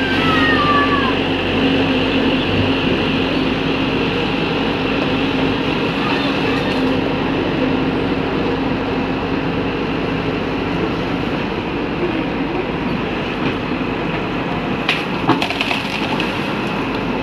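Hyundai crawler excavator's diesel engine running steadily with a constant hum, its hydraulics working the boom against a tree. A few short falling whistles sound near the start, and a sharp knock about 15 seconds in.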